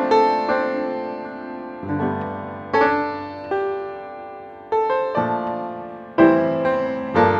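Background piano music: notes and chords struck every second or so, each left to ring and fade before the next.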